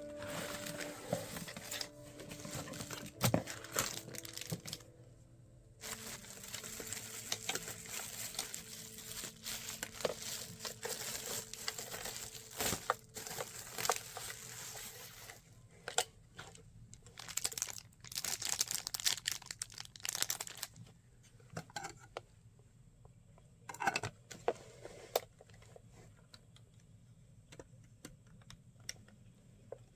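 Crinkling and rustling of something being handled, mixed with scattered clicks and light knocks. It grows sparser and quieter in the last few seconds.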